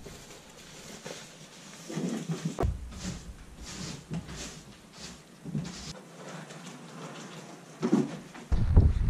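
Clean-up noises in a small room: rustling, a few knocks, and scratchy strokes of a broom sweeping a concrete floor. Near the end these give way abruptly to a loud low rumble.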